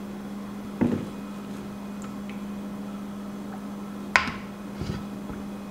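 A spoon or stick blender knocking twice against a stainless steel mixing bowl of soap oils, about a second in and again at about four seconds, the second knock sharper, with faint stirring between, over a steady low hum.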